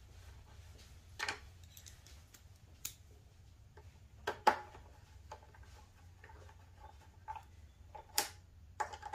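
Scattered small clicks and taps of screws being started by hand into the plastic fender and flight fin of a Onewheel Pint, over a faint low steady hum.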